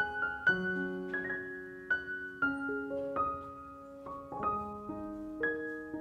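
Soft background piano music: a slow melody of single notes and chords, a new one struck about every half second and left to ring.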